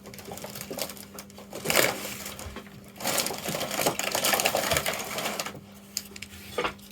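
Clicks and clatter of small hard objects being handled on a workbench, with a stretch of rustling and shuffling in the middle. A steady low hum runs underneath.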